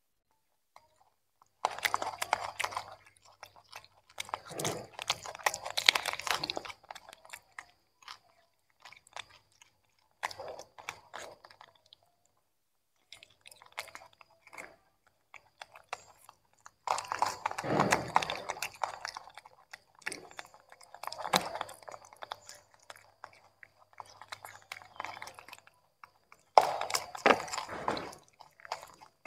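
Young macaques chewing and crunching on pieces of carrot and broccoli, in spells of crunching a second or two long with short pauses between.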